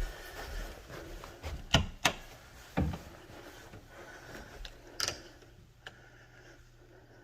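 A few sharp knocks and clicks, three close together around two seconds in and one more about five seconds in, over a low background.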